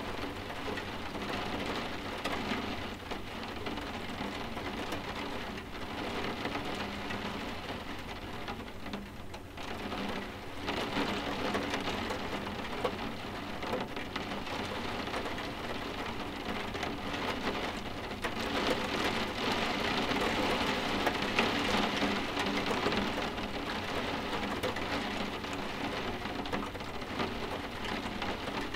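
Steady rain falling in a dense patter of drops. It eases briefly about a third of the way in and grows a little heavier past the middle.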